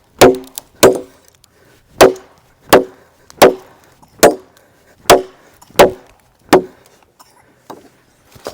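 Machete chopping wood: nine sharp strokes, roughly two-thirds of a second apart, each with a short ringing tone. The chopping stops about seven seconds in.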